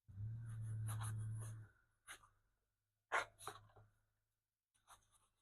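Hand scraping of softened, gooey finish on a wooden radio cabinet being stripped: one longer scrape with a low hum under it, then short scrapes about two, three and five seconds in.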